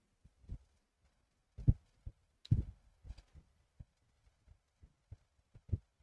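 Soft, irregular low thumps and knocks: handling noise near the microphone, with the strongest knocks between about one and a half and three seconds in.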